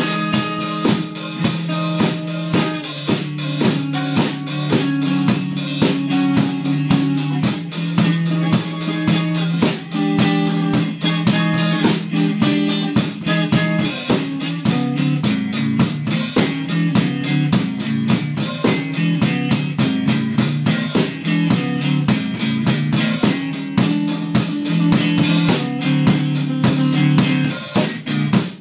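Guitar and drum kit playing together in a live jam: held guitar notes that shift in pitch every second or so over a steady, busy drum beat with frequent cymbal hits.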